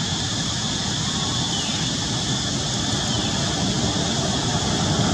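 Steady background rumble and hiss with no distinct events.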